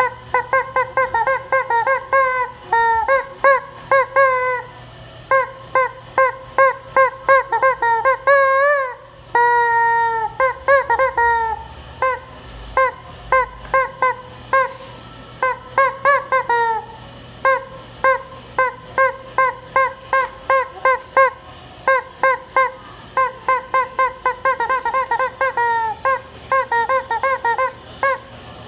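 Chicken clucking loudly and without letup: quick, short calls about three to four a second, with a few longer drawn-out squawks about a third of the way in.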